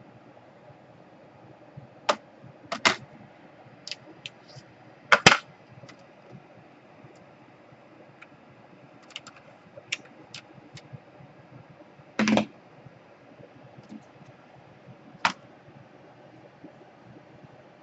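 Irregular clicks and light knocks of laptop parts and tools being handled during reassembly, over a low steady hiss. The loudest are a quick double knock about five seconds in and a slightly longer clatter around twelve seconds.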